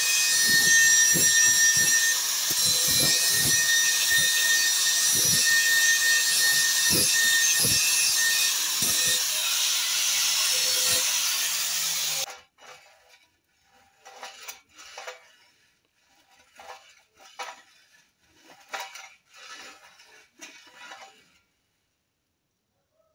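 Angle grinder grinding the top of a welded steel lathe bed to level it: a steady high whine, the motor note dipping briefly each time the disc bites. It cuts off abruptly about halfway, followed by a series of quieter, short scraping strokes.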